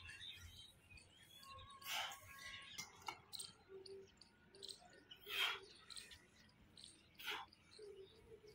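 Four short, sharp breaths forced out during hard push-ups, irregularly spaced one to two seconds apart, with faint bird chirps in the background.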